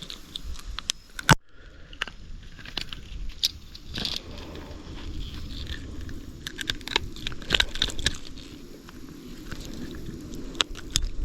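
Irregular clicks, crackles and scrapes of close-up handling, over a low rumble.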